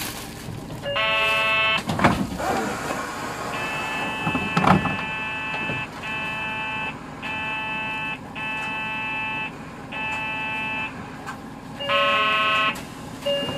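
Electronic chime-and-buzzer tones aboard a Hino 2DG-HX9JLCE bus: a chime about a second in, then a buzzer in a run of beeps of uneven length, and the chime again near the end. Underneath is the bus's low running rumble.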